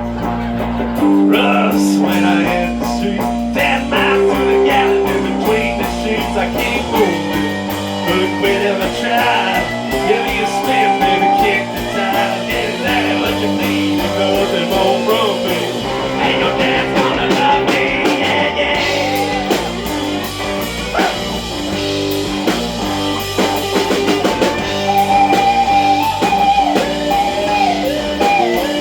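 Live band playing an instrumental guitar break in a bluesy rock song, with bass and regular drum hits underneath.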